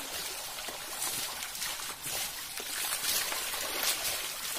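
Shallow stream water running, with repeated splashes as water buffaloes step through it and water is thrown over them.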